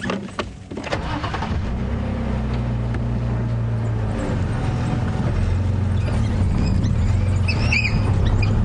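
Safari game-drive vehicle's engine running as the vehicle pulls slowly forward through bush. The engine hum comes up about a second in and grows slowly louder.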